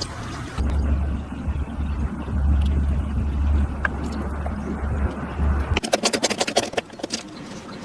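A low motor hum runs for about five seconds and cuts off suddenly, followed by a quick run of light taps or clicks.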